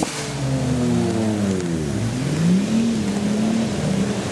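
Suzuki Jimny's engine revving as it crawls up a muddy rut, the revs falling and rising in the first half, then held fairly steady.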